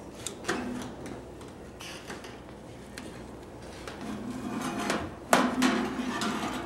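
Metal baking pan clanking against the rack and door of a small countertop oven as it is slid in. A light click comes early, and two sharp metallic clanks follow about five seconds in.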